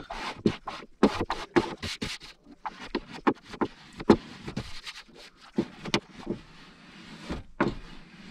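A plastic set square used as a squeegee, scraping in quick, irregular strokes across wet-applied self-adhesive foil to push out air bubbles. The strokes come thick and fast at first and thin out in the second half.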